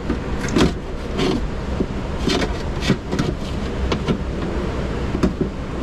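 Metal window regulator rail and its cables knocking, rattling and scraping against the inner sheet metal of a car door as the regulator is worked in through the door's access hole: a run of irregular knocks and clatters over a steady low hum.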